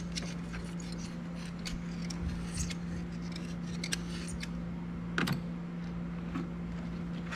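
Light scattered clicks and scrapes of hand work on a thermostat seal and housing as they are cleaned, with a short squeak falling in pitch about five seconds in, over a steady low hum.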